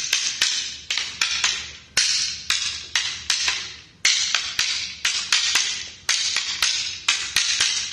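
Two pairs of practice fighting sticks clacking against each other in a double-stick partner drill: rapid, sharp, rhythmic strikes, several a second, in a pattern that starts over with a hard hit about every two seconds.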